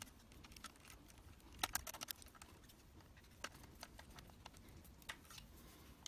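Faint clicks and taps as wires and an insulated screwdriver are handled at the terminal screws of a wall socket faceplate, with a small cluster of clicks about two seconds in and a couple of single ticks later.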